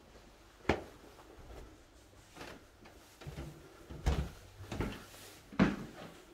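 A few sharp knocks and thumps: one about a second in, then three in quick succession, each well under a second apart, in the second half.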